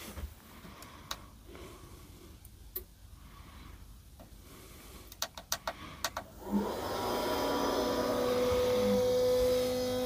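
Vevor 2 kW diesel heater being started from its controller: a few button clicks, then about six and a half seconds in a steady hum and whine set in and slowly build as the heater starts up. The whine is the battery charger that powers the heater, working under the start-up load.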